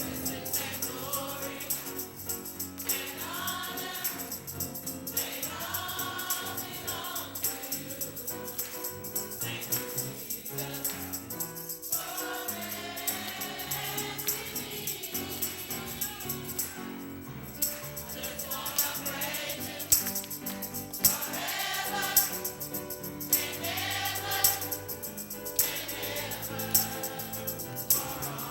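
Gospel choir singing a slow worship song with instrumental accompaniment; in the second half, light percussion strikes keep an even beat about once a second.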